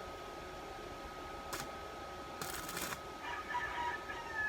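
A chicken calls near the end, a pitched call of a little over a second that bends up and down. It follows a brief crackle about halfway through. A faint steady high whine runs underneath.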